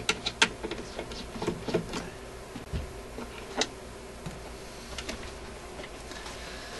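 Scattered sharp clicks and light knocks of a screwdriver working the mounting screws of an old radio chassis and of the chassis being handled in its wooden cabinet, over a faint steady hum.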